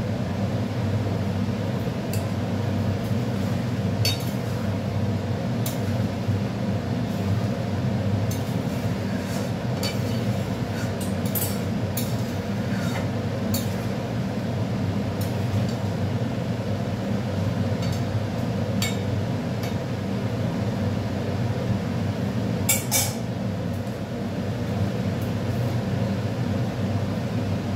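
A metal spoon clinking and scraping against a steel pan as curry is stirred, in scattered sharp taps, the loudest near the end. A steady low hum runs underneath.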